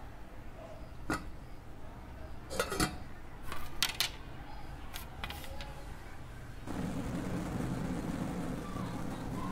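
A few sharp clinks and knocks of steel pots and utensils. About two-thirds of the way in, a steady rumble of street traffic comes in suddenly.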